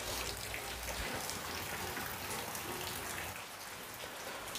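Room tone: a steady, faint hiss with light crackle and a little low rumble in the first second.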